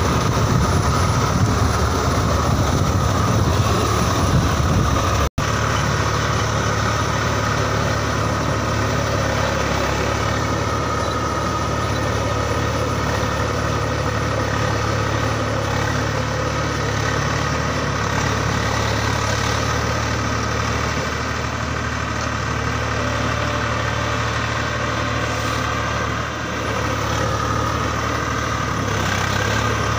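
Swaraj 855 FE tractor's three-cylinder diesel engine running under load as it pulls a rotavator through wet paddy mud. The sound is rougher and noisier for the first five seconds. After a brief dropout it settles into a steady engine note.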